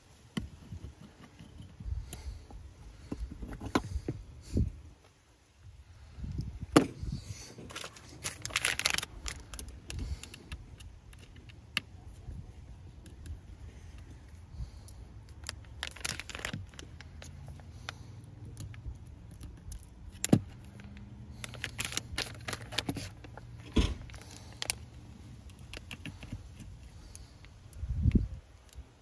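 Small clicks, taps and scrapes of tools and iPhone parts being handled during a housing transfer, with a few short scratchy passages. A low steady hum comes in about six seconds in.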